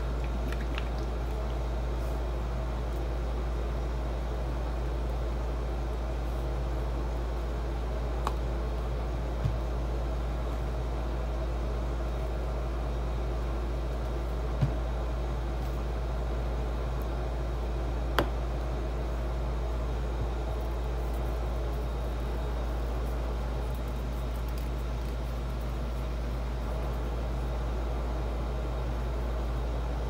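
Steady low hum and hiss of background noise, with a few short sharp clicks in the middle.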